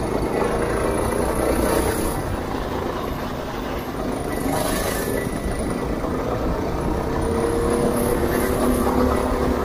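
Go-kart engine running steadily under throttle as the kart is driven round the track. The engine pitch climbs a little and grows louder in the last couple of seconds as the kart accelerates.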